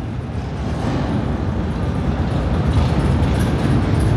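Motorcycle engines running in a parking garage, a continuous low rumble echoing off the concrete and growing slightly louder.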